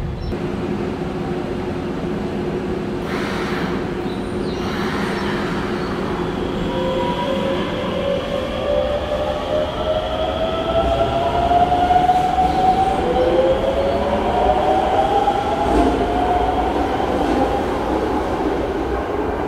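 Hokuso Railway 7300 series train pulling out of an underground station, its Toyo GTO-VVVF inverter whining in two rising steps as it accelerates over the rumble of wheels on rail.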